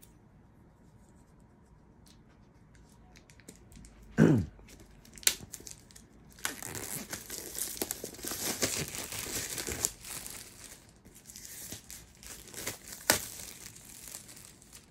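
Plastic shrink wrap being torn and peeled off a large hardcover book. A sharp tear comes about four seconds in, then several seconds of dense crinkling and ripping that thins out, with a last snap near the end.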